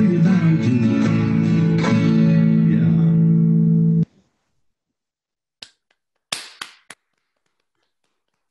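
Acoustic guitar, banjo and mandolin playing the end of a folk song with voices on the last line, the final chord ringing until it cuts off abruptly about four seconds in. Then silence, broken by a few short sharp clicks or claps.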